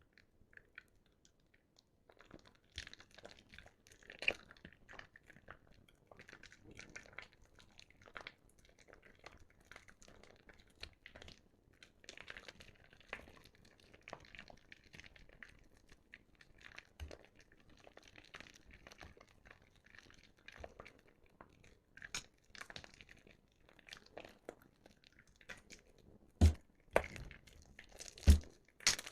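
Soaked, mushy bar soap being squeezed and squished by hand, a dense run of small irregular wet clicks starting about two seconds in, with a few louder sharp snaps near the end.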